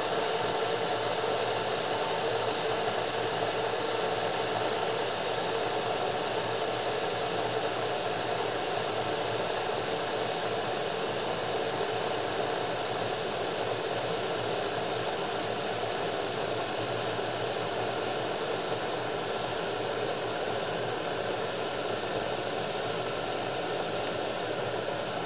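Steady hiss of liquid heating in a Sinbo SCM 2922 electric Turkish coffee pot, nearing 80 °C and not yet boiling.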